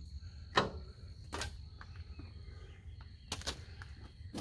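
PVC pipe and fittings knocking together as they are handled, giving about five short sharp clacks: one under a second in, one near a second and a half, a quick pair past three seconds, and one at the end.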